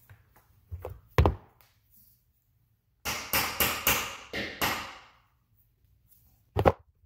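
A hammer tapping a metal mounting bracket against a drywall ceiling, knocking it straight. There are two sharp knocks about a second in, then a quick run of taps, then one more hard knock near the end.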